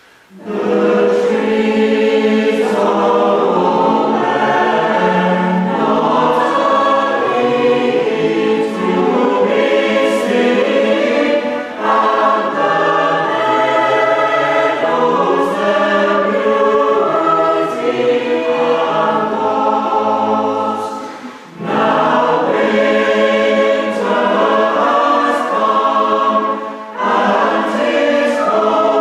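A mixed West Gallery choir singing a Christmas carol in parts, with cello and violins accompanying. The choir comes in about half a second in after a brief hush, and the singing breaks off briefly between phrases.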